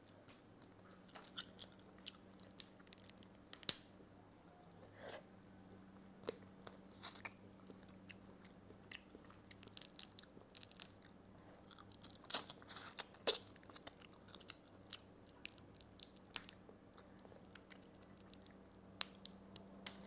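Steamed crab being cracked and picked apart by hand and eaten: scattered sharp crackles and clicks of shell breaking, with chewing between them, the loudest cracks about twelve to thirteen seconds in.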